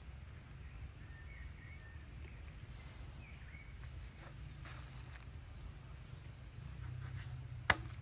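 Outdoor ambience with a steady low rumble, a few faint bird chirps in the first few seconds, and one sharp click near the end.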